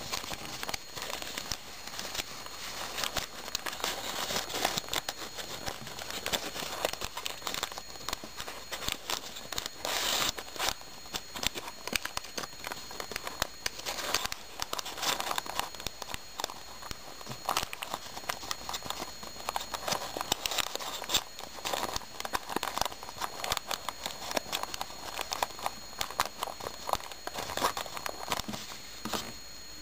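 Folded origami paper units of a sonobe cube rustling and crinkling under the fingers as flaps are tucked into pockets, with many small irregular clicks and taps.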